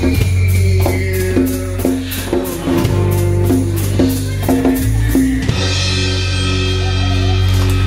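Live acoustic band playing: strummed acoustic guitars and bass over a steady drum and percussion beat. About five and a half seconds in, the beat stops and the song ends on a held final chord with a cymbal wash.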